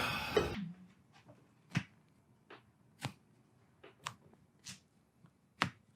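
Sharp, irregular clicks and pops during a chiropractic adjustment, about seven of them, the loudest about two seconds in and near the end.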